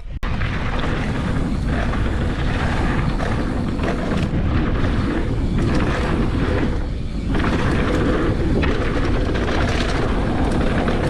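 Wind rushing over a GoPro Hero 12's microphone, with tyre and trail noise, as a mountain bike is ridden along a dirt trail. The noise is steady and loud, easing briefly about seven seconds in.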